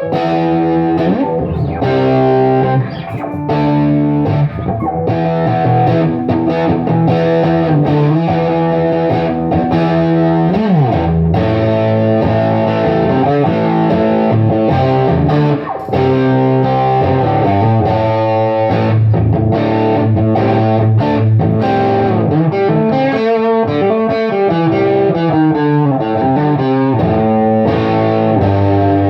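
Electric guitar played through a Bell 3723M tube PA head turned up into heavy, fuzzed-out overdrive with no pedals, its negative feedback switched off: distorted chords and riffs. About eleven seconds in, a bent note swoops down and back up.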